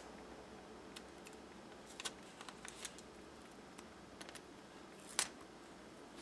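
Faint handling sounds of fingers pressing washi tape down onto a notebook page: scattered small clicks and paper rustles, the sharpest click about five seconds in.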